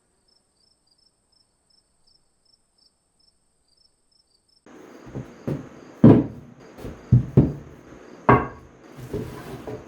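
A faint high chirp repeating about three times a second, then from about halfway in a run of sharp knocks and thuds over a noisy background.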